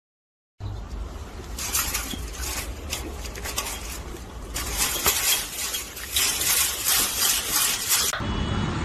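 Clinking and rattling of small hard objects: many quick sharp clicks, busier and louder about halfway through. A short stretch of dead silence opens it.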